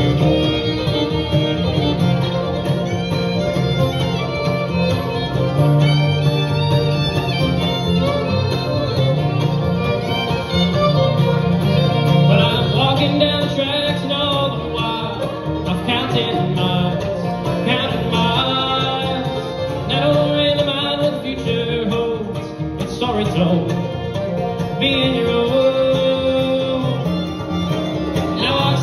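Live bluegrass band playing an instrumental break: a mandolin leads over acoustic guitar, banjo and upright bass, and a fiddle takes the lead from about halfway through.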